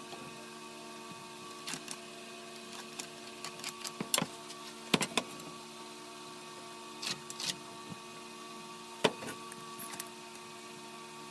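Scattered light knocks and clicks of wood pieces and tools being handled, over a steady hum from a machine left running in the shop.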